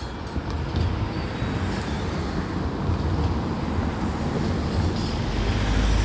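Steady low vehicle rumble outdoors, growing louder near the end.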